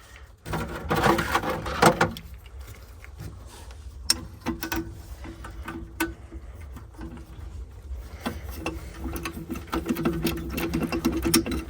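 Small electric screwdriver whirring in short runs as it drives the boiler's nuts and screws back up, with clattering of metal parts near the start.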